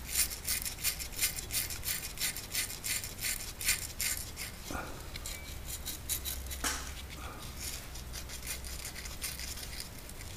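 Sandpaper scrubbing the end of a copper refrigeration tube in quick back-and-forth strokes, about three or four a second, cleaning the joint for brazing. The strokes grow fainter and sparser over the second half.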